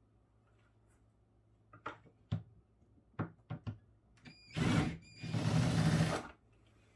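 Refrigerator parts being worked loose during disassembly. A series of sharp plastic clicks and knocks comes first, then two longer scraping, rubbing sounds, the first with a brief squeak.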